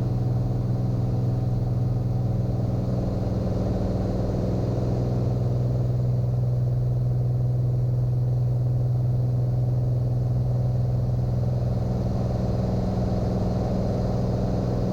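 Cirrus SR22T's turbocharged six-cylinder engine and propeller droning steadily, heard inside the cabin, at climb power.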